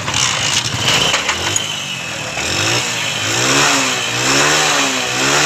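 Honda CD 70's single-cylinder engine started after a few knocks, then revved up and down about three times. The exhaust runs smoothly, without the popping that came from a rotten silencer seal, now replaced with a new one.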